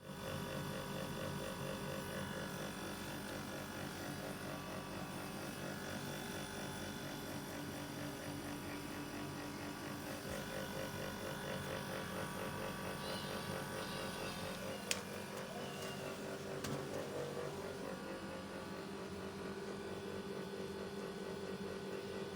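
Air conditioner unit running during refrigerant charging, a steady mechanical hum. Two sharp clicks come about two-thirds of the way in, after which the hum's pitch shifts slightly.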